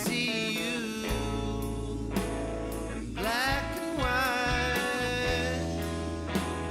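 Background song: a voice singing over guitar and a steady bass line.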